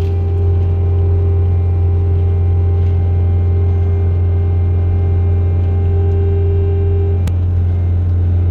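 An engine running steadily at a constant speed, a loud low drone with a steady hum above it, and a single sharp click about seven seconds in.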